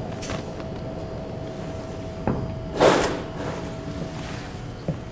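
Handling noise at a tripod-mounted DSLR: a soft click a little over two seconds in, then a brief louder rustling knock, with a faint steady hum underneath.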